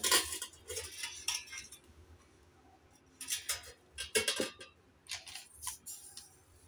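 Stainless steel cookware being handled: short clinks and scrapes of steel on steel, in several clusters, loudest at the very start and again from about three to six seconds in.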